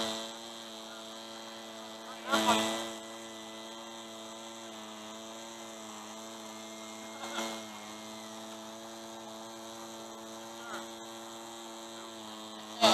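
A steady hum made of several evenly spaced tones, with brief louder noises about two and a half seconds in and again about seven seconds in.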